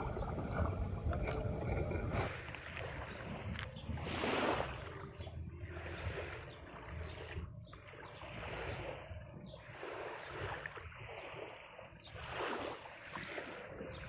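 Small waves lapping and washing onto a sandy shore, swelling every few seconds, with some wind on the microphone.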